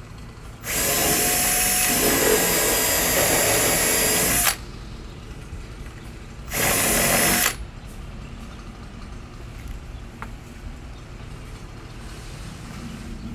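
Cordless drill spinning a spin flare tool against the end of a copper refrigerant line, friction-forming a new flare on the tubing. It runs steadily for about four seconds, stops, then gives one short burst of about a second.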